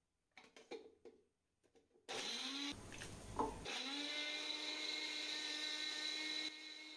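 An electric mixer grinder starts with a rising whine, cuts out briefly, then starts again and runs steadily. A few soft clicks come before it starts.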